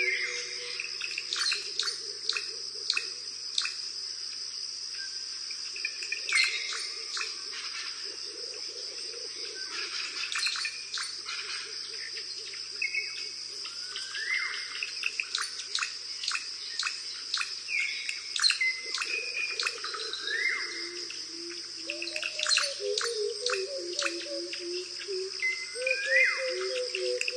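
Forest ambience: a steady high insect drone with birds chirping and giving short rising whistled calls now and then. Low wavering tones come in during the last few seconds.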